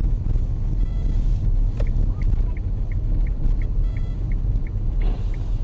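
Heavy low vehicle rumble of engine and road noise, with a short high beep repeating about three times a second through the second half.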